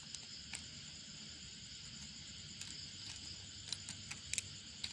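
Faint, steady high-pitched background chirring, with a few light, scattered clicks and taps from hands and tools on the chainsaw; the clicks cluster a little in the last second or so.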